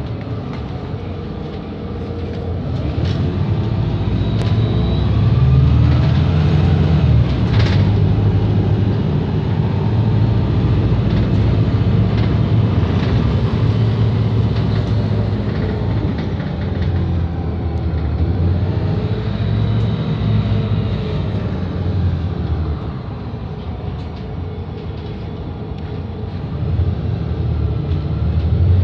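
On board a Volvo B7RLE bus under way: the rear-mounted seven-litre six-cylinder diesel drones steadily, swelling and easing several times as the bus accelerates and backs off, with occasional rattles and clicks from the body and fittings.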